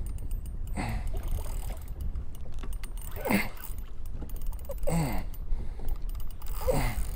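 Steady wind rumble on the microphone over open water, broken about four times by short grunts of effort, each falling in pitch, from an angler pulling back on a bent rod against a strong fish on a tight drag.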